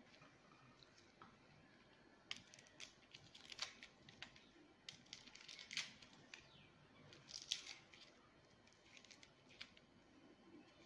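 Kitchen knife peeling the papery skins from garlic cloves: faint scattered scrapes, crackles and small taps in irregular clusters, starting about two seconds in.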